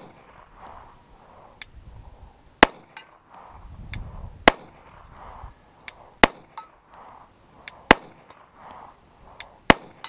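Glock 21 .45 ACP pistol fired five times in slow, aimed single shots, one about every two seconds. A moment after a couple of the shots comes a faint ring of a distant steel target plate being hit.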